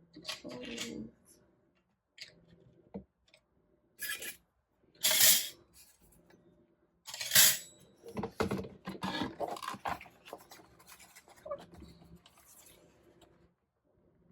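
Paper cutter slicing through heavy cardstock in several separate strokes, the loudest about five and seven seconds in. Between them the sheets slide and rustle as they are lined up, with small scrapes and clicks.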